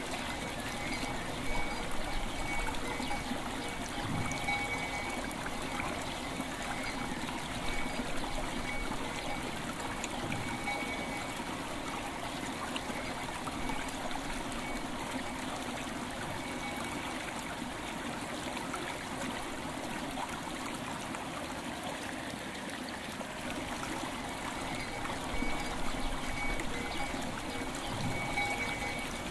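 River water flowing steadily, with bells ringing several held tones over it, clearer near the start and again near the end.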